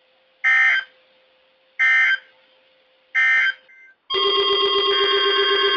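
Three short screeching bursts of SAME digital data from a NOAA Weather Radio transmitter, about 1.3 s apart: the End of Message code that closes a warning broadcast. About four seconds in, a loud layered electronic alarm of steady tones and beeps starts, as weather alert radio receivers sound.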